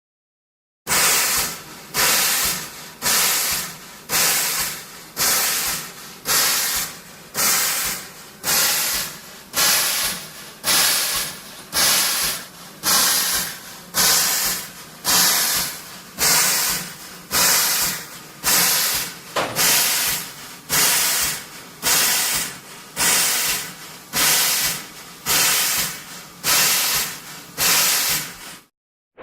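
Steam locomotive exhaust chuffing at a slow, even pace: a sharp hissing chuff a little more than once a second, starting about a second in and stopping just before the end.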